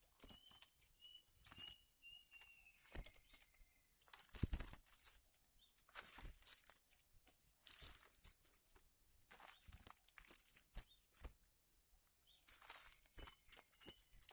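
Faint rustling and crinkling from handling, with scattered soft clicks. A bird calls twice, once near the start and once near the end, each time with a short run of high repeated notes.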